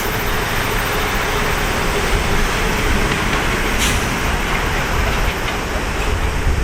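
Jet engines of an Airbus A330-300, Rolls-Royce Trent 700 turbofans, running with a steady noise and deep rumble, a faint steady tone under it.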